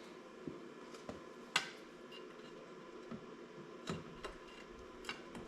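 Scattered light clicks and taps of small metal trim parts and hand tools being handled while a car door panel is taken apart, about six in all, the sharpest a second and a half in.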